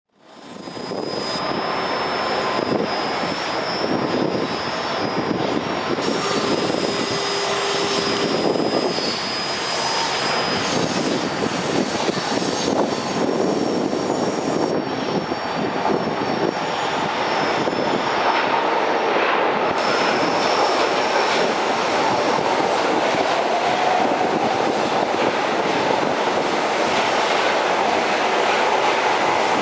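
São Paulo Metro Frota D train pulling into a station: steady rumble and hiss of the wheels on the rails, with thin high-pitched wheel squeals coming and going in the first half.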